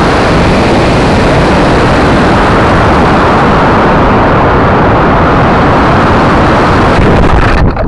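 Model rocket motor burning during launch, heard from a camera riding on the rocket: a loud, steady rushing noise that cuts off suddenly near the end as the motor burns out.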